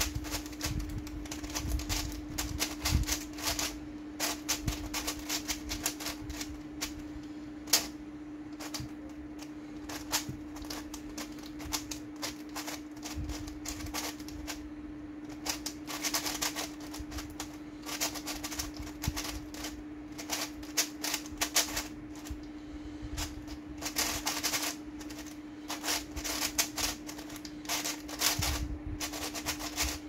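A 3D-printed 3x3x4 cuboid speedcube clatters as it is turned fast during a timed solve. Its plastic layers make flurries of sharp clicks, broken by brief pauses.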